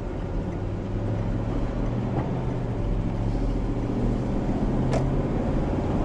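Camper van's engine running as the van pulls out and gathers speed, heard from inside the cab; the engine hum grows slightly louder as it goes.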